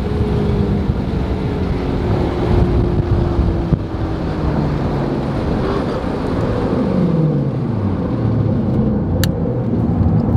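Mustang V8 engine running loud at a drag strip. Its pitch sinks slowly through the first few seconds, then drops and climbs again twice near the end. Wind noise runs underneath.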